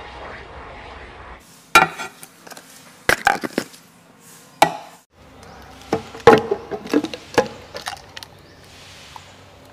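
A string of sharp knocks and clinks from a metal paint tin being handled and a metal tool tapping at its rim, with small scrapes between the knocks.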